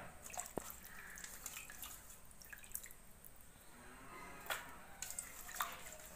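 Hands washing small puti fish in a metal bowl of water: faint swishing, splashes and drips, with a few light clicks.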